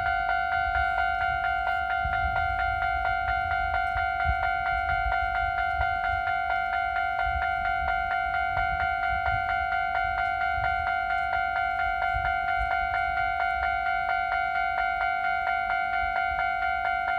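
Keisei Electric Railway level crossing alarm ringing at a fast tempo: an electronic ding repeated several times a second at an even rhythm, with a low rumble underneath.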